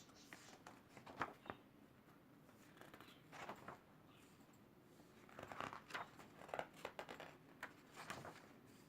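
Faint rustling and flicking of paper pages as a large colouring book is leafed through, a handful of short rustles spread over several seconds.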